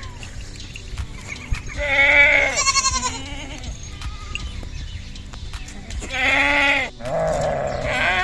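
Young goats (kids) bleating: three wavering calls of about a second each, about two seconds in, about six seconds in, and again near the end.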